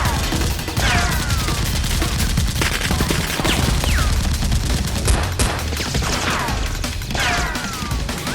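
Rapid gunfire sound effects with repeated falling whistles, over background music with a low beat.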